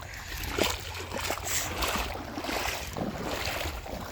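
Water splashing and sloshing irregularly as a hooked small carp thrashes at the surface while it is brought in, with a low wind rumble on the microphone.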